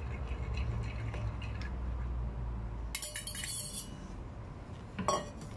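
Metal fork stirring beaten egg in a bowl, with light clicks, then a short bright metallic scrape about three seconds in and a sharp ringing clink of the fork against a bowl near the end.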